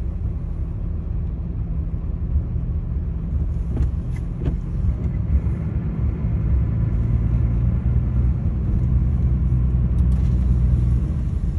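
Steady low rumble of a truck heard from inside its cab, growing a little louder about halfway through.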